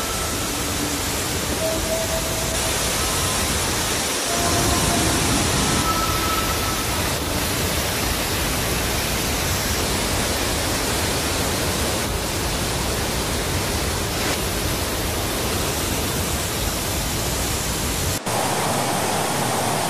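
Steady, loud rush of water as a surge of brown floodwater crashes over a riverside seawall and pours across the road. The sound changes abruptly near the end, where it runs on as floodwater surging over a wall.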